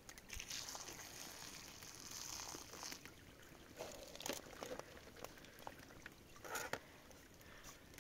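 Rice and water poured from a bowl into a plastic colander, with the water splashing and draining through. A few light knocks of the bowl and colander follow.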